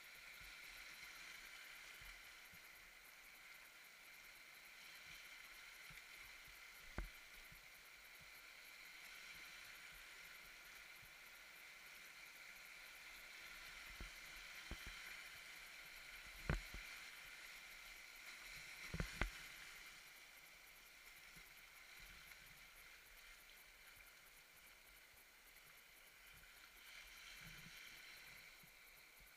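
Faint steady rush of whitewater as a kayak runs a rapid, with a few sharp knocks scattered through it, the loudest about two-thirds of the way in.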